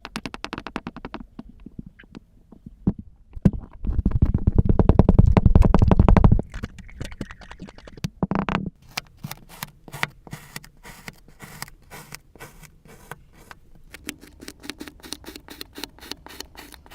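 Kinetic sand being handled, giving a run of crackling and scraping. It is loudest and densest for a couple of seconds about four seconds in, then gives way to a long string of quick, crisp ticks.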